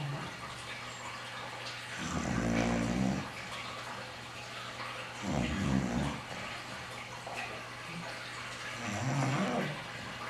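Bulldog snoring in its sleep: three loud snores, each about a second long and roughly three and a half seconds apart.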